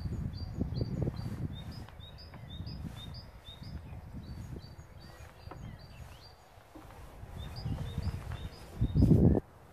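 A small bird chirping, short high notes repeated about twice a second, over low rumbling outdoor noise. Near the end, a loud low thump.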